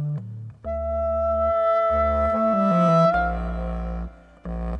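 Clarinet holding one long high note for about two and a half seconds, then moving through a quick run of shorter notes. Low bass notes sound underneath in separate held blocks, and the music briefly thins out about half a second in and again near the end.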